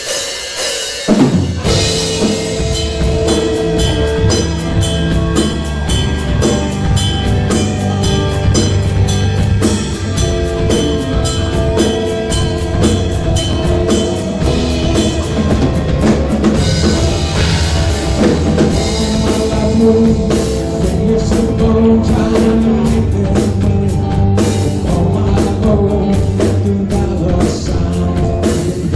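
Rock band playing live: a drum kit with steadily struck cymbals, bass drum and other instruments, starting about a second in.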